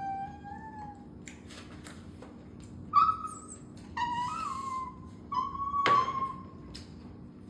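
A small Chinese rural dog whining in drawn-out, talk-like moans, four or five in a row with short gaps, begging for food it craves. There is a sharp click about six seconds in.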